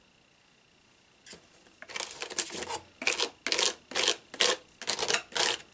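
Palette knife scraping purple stencil butter (a texture paste) across a plastic stencil on paper, in short repeated strokes about two a second, starting about two seconds in.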